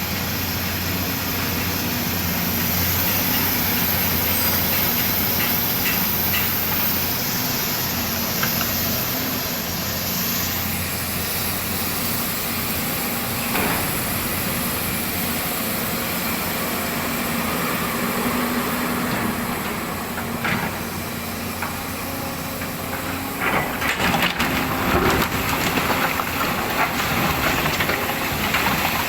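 Volvo excavator's diesel engine running steadily while it digs. Irregular knocks and scraping rattles come in a few seconds before the end.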